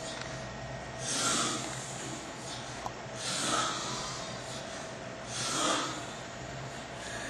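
Snoring: three noisy, snorting breaths about two seconds apart, over a faint steady hum.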